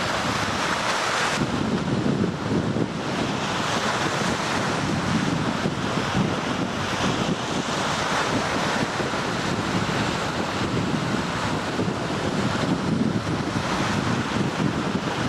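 Strong typhoon wind blowing across the microphone over rough lake waves, a continuous dense rush of noise.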